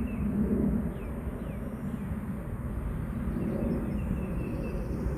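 Outdoor ambience: a steady low rumble, with faint bird chirps about a second in and again past the middle.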